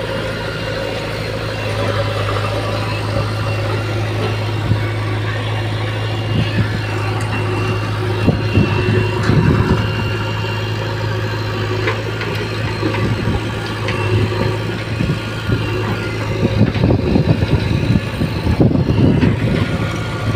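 Diesel engine of a JCB 3DX backhoe loader running with a steady hum while the backhoe loads soil into a tractor trolley. The engine gets louder and rougher about eight seconds in and again near the end.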